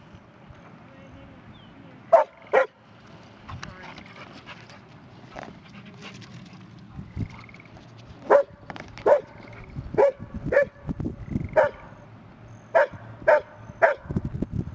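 A dog barking in short, sharp barks: a pair about two seconds in, then a run of about eight barks from about eight seconds in, spaced half a second to a second apart. He is barking at the water's edge to ask permission to swim.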